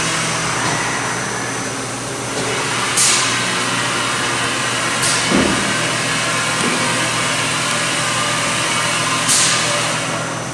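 Steady industrial machinery hum, with short sharp hisses, like air releases, about three seconds in, about five seconds in, and again near the end.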